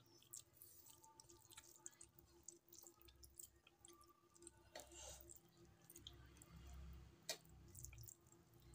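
Faint, irregular wet clicks and squelches of eating by hand: fingers mashing and mixing rice and dal on a metal plate, along with chewing. There is one sharper click a little past seven seconds.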